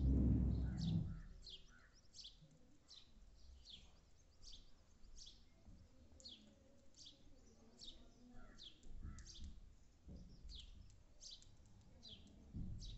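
House sparrow chirping over and over, short falling chirps about twice a second. A low rumble in the first second is the loudest sound, with a few faint low thumps later.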